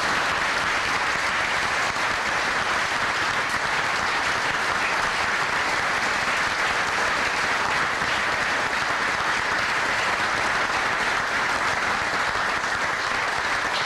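Crowd applauding: many people clapping in a steady, unbroken round.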